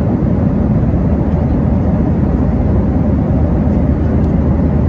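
Airliner cabin noise: a loud, steady low rumble heard from a passenger seat inside the cabin.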